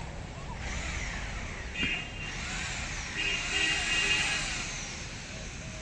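Power drill whining in short runs as it drives self-tapping screws into metal profile sheet, with a single knock a little under two seconds in.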